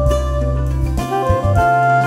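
Instrumental background music: sustained melody notes over a bass line, which changes about a second in.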